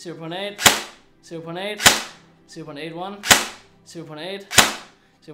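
Airsoft gun firing single shots on semi-automatic through a chronograph: four sharp cracks about 1.3 seconds apart, with a short spoken reading between shots.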